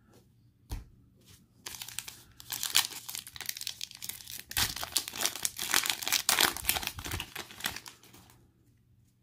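A trading-card pack's plastic foil wrapper being torn open and crinkled by hand, crackling for about six seconds before it stops, after a single light knock about a second in.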